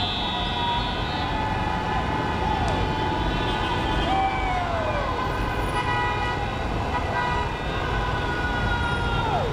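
Many car horns blaring at once, several held long, over a dense din of crowd and traffic. A few short falling pitch sweeps cut through, about halfway and again near the end.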